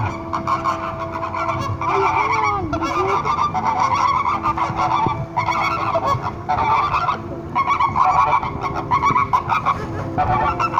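A flock of flamingos honking in a loud, goose-like chorus, in bouts of a second or two with short breaks, as they call during their group marching display.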